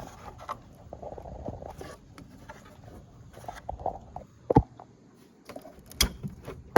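Hands working plastic trim and the bulb socket of a Camaro's rear light assembly: light scraping and rustling with scattered clicks, and two sharper knocks about four and a half and six seconds in as the part comes free.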